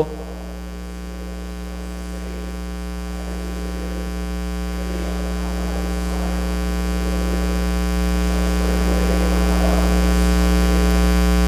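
Electrical mains hum in the audio feed: a steady low buzz with a stack of overtones, growing slowly and steadily louder.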